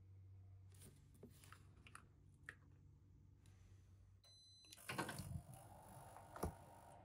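Remote-controlled fireplace switching on: a few faint clicks, then a short beep about four and a half seconds in, followed by a burst of rushing noise as it lights, a sharp click, and a faint hum that rises and holds.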